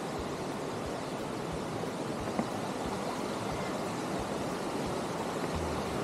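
Water rushing down the small cascades of a waterfall in a steady, even rush, with a low rumble near the end.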